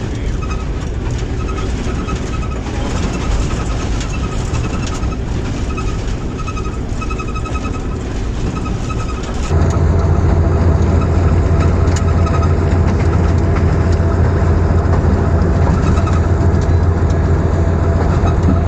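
Hitachi HBU-20 diesel-electric locomotive running along the track, heard from its cab: a steady rumble of wheels on rail. About halfway through the sound cuts to a louder, steady low engine drone.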